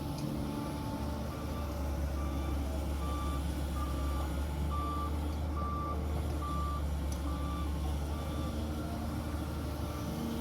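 A heavy vehicle's reversing alarm beeping at about one beep a second over the low, steady running of a diesel engine.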